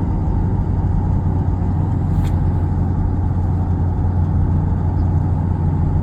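Steady low rumble of a car on the move, engine and road noise with no change in pace.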